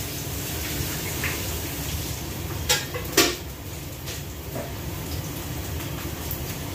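Kitchenware being handled at a counter: two sharp clatters about half a second apart near the middle, with a few lighter knocks, over a steady low hum.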